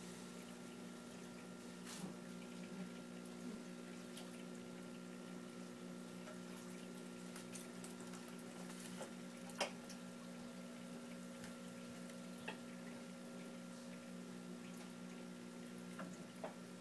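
Home aquarium's pump and bubbler running: a faint steady hum with gentle bubbling and trickling water, broken by a few brief ticks, the sharpest about halfway through.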